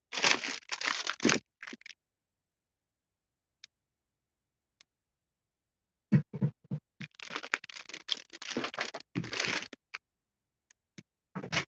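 Two stretches of scratching, scraping noise, one at the start and a longer one from about halfway, with silence between.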